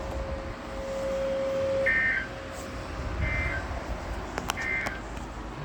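Three short bursts of warbling digital data tones, about a second and a half apart: the SAME end-of-message code of an Emergency Alert System broadcast on weather radio, marking the end of the warning. Before them a steady low tone sounds for about two seconds.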